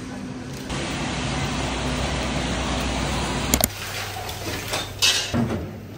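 Restaurant kitchen noise: a steady rush with a low rumble from the cooking range. Two sharp clicks come a little past halfway, then the noise drops to a lower hum, and metal tongs clink against a pan near the end.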